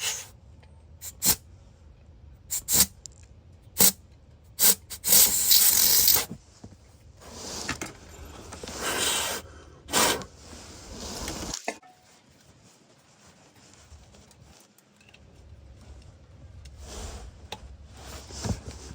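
Small metal pick tool scraping and clicking against the terminals of a wiring pigtail connector, cleaning out debris. It makes a run of sharp clicks and short scratches, with a couple of longer rasping rubs in the middle, and ends in quieter handling.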